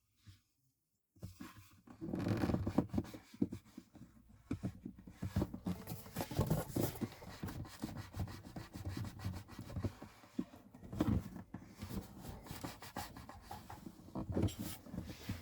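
Hand work on a wooden acoustic guitar body: irregular rubbing and scraping with small knocks, starting about a second in after a brief silence.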